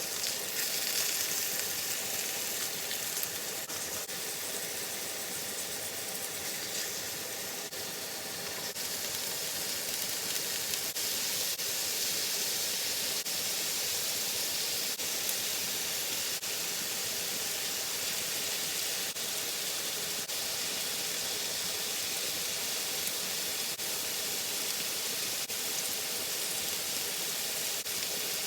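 Chicken frying in a pan, a steady sizzle with faint scattered pops.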